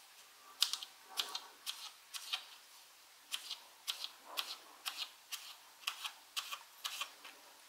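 Knife slicing a cucumber into rounds on a plastic cutting board: a run of crisp chops, often in pairs, about two a second.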